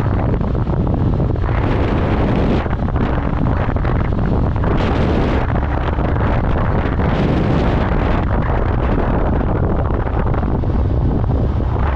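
Loud wind buffeting the microphone of a moving rider: a steady low rumble with a hiss that surges and falls back every few seconds.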